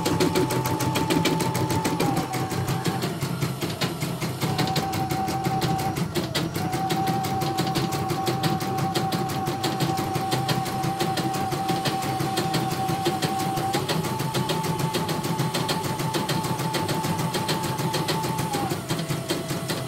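CNY portable embroidery machine stitching a design during a test run after repair: rapid, even needle strokes over a steady motor whine. The whine steps slightly down in pitch about two seconds in, rises again about two thirds of the way through, and dips once more near the end.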